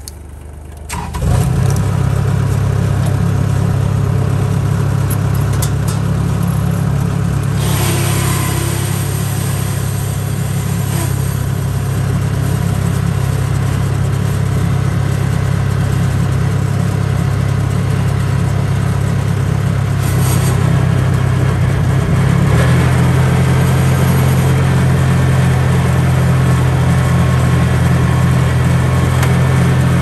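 Rice harvester engine rising sharply from a low idle to high revs about a second in, then running steadily at full speed. Its note shifts slightly about three-quarters of the way through.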